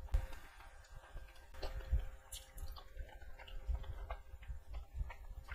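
Close-up chewing of a mouthful of rice and chicken curry with the mouth closed: irregular wet clicks and soft low thumps.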